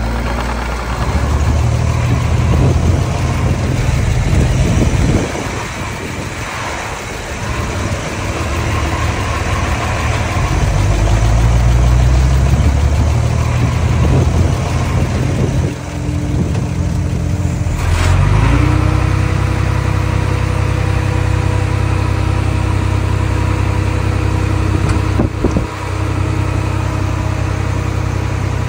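Mini bulldozer's diesel engine working, its pitch and load rising and falling as it pushes, then settling into a steadier run about two-thirds of the way through. A couple of sharp knocks come through the engine noise.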